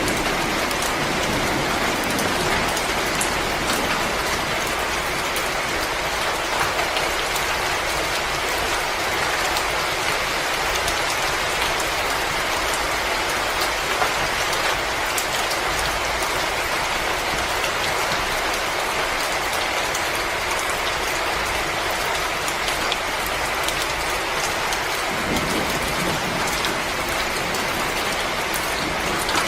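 Wood fire crackling in a fireplace: a continuous hiss with many small, irregular pops and ticks.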